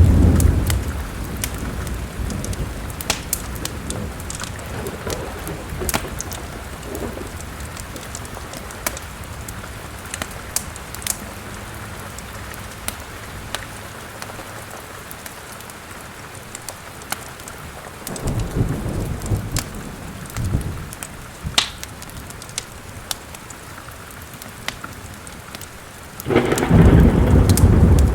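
Steady rain with rolls of thunder: one dying away at the start, another about two-thirds of the way in, and a loud one near the end. A log fire crackles in sharp clicks throughout.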